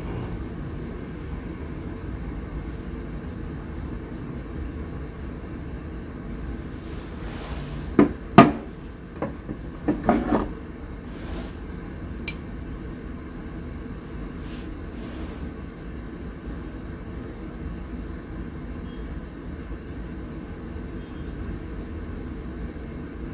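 Brass antique pieces, a pipe and a door knocker, knocking and clinking against each other and the wooden tabletop as they are handled. A short cluster of clinks and knocks comes about a third of the way in, with one faint click shortly after, over a steady low rumble.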